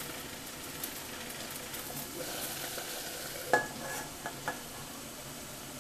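Steady hiss of water boiling hard in a pot under a stainless steel pan set up as a double boiler. About three and a half seconds in, the steel pan knocks against the pot with a ringing clank, followed by two lighter metallic clinks.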